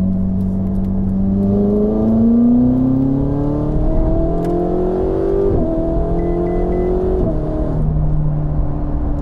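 2017 Ferrari 488 GTB's twin-turbo V8, heard through an aftermarket exhaust, accelerating hard under load. The engine note climbs steadily for about five seconds, drops sharply at an upshift, climbs again, and drops at another shift about seven seconds in.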